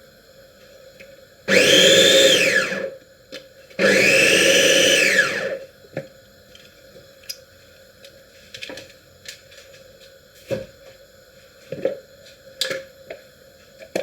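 A small electric kitchen blender or chopper run in two short pulses, its motor whine rising and falling each time, followed by light clicks and knocks.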